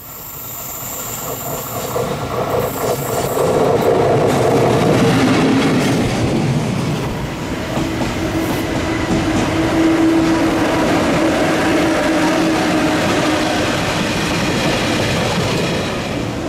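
Freight train hauled by an electric locomotive passing on the line. The sound swells over the first four seconds as the train approaches, then stays loud and steady as the wagons roll by.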